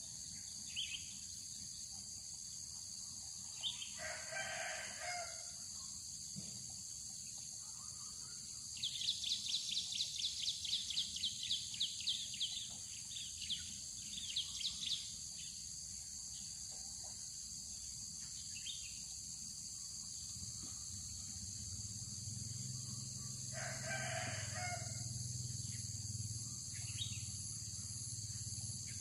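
A rooster crows twice, far apart, over a steady high chorus of insects. Between the two crows a bird gives a quick run of high chirps, about four a second.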